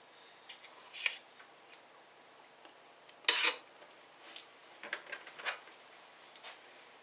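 Light clicks and taps of small tools and a laptop's plastic parts being handled during disassembly, with a louder clatter about three seconds in and a few quick clicks near the five-second mark.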